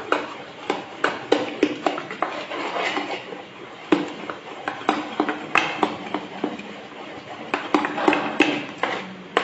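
A spoon quickly beating besan batter in an aluminium pot, knocking against the pot's sides about two to three times a second. The batter has just had Eno fruit salt mixed in and is being whipped until fluffy.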